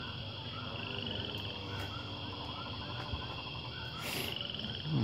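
Outdoor daytime ambience: a steady high insect drone with birds chirping and trilling, and a brief hiss about four seconds in.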